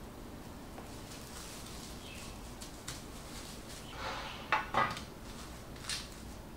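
Cling film rustling and crinkling as it is wrapped around a slab of dough, then a small stainless steel tray knocking twice on a wooden board, with a lighter tap about a second later.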